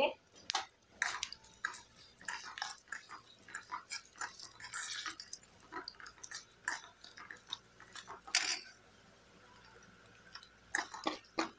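Tempering of garlic, cumin, curry leaves, dried red chillies and salted dried chillies frying in hot oil in a steel pan, giving irregular small pops and crackles, with a steel spoon clinking and stirring in the pan.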